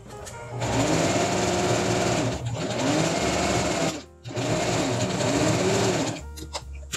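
Electric sewing machine stitching in two runs: about three seconds, a brief stop around four seconds in, then about two seconds more. The motor's pitch rises and falls as the speed changes.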